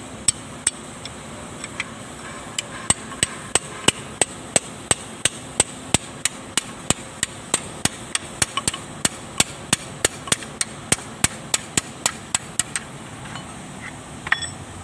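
Rapid metal-on-metal hammer blows, about three a second, driving a GL19 tractor's propeller shaft along its splines to remove it; the tapping stops about two seconds before the end.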